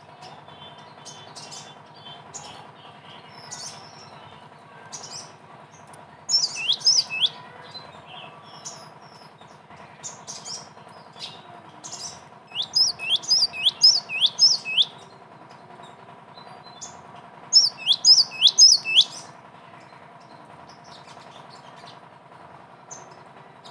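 Cinereous tit (gelatik batu) singing: three bursts of quick, repeated whistled notes, each note dropping sharply in pitch, with scattered short chirps between them. A faint steady hum runs underneath.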